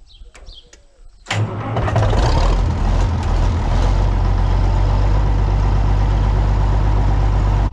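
Tractor engine catching about a second in, coming up to speed and then running steadily, after a few faint clicks.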